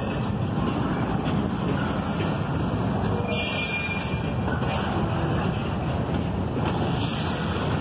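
Double-stack intermodal container well cars rolling past on the rails: a steady noise of steel wheels on track, with a high hiss that comes and goes.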